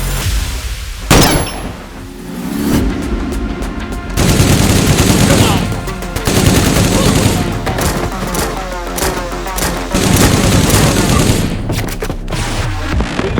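Rapid gunfire sound effects with a sharp bang about a second in, over electronic background music.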